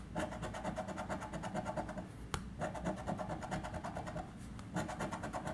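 A coin scraping the coating off a paper scratch card in rapid back-and-forth strokes, in a few runs broken by short pauses, with one light click about halfway through.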